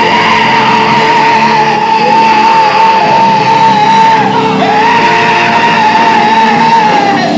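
Live gospel band music with a long, high held note that wavers with vibrato. It breaks off once, about two-thirds of the way through, then is taken up again until near the end.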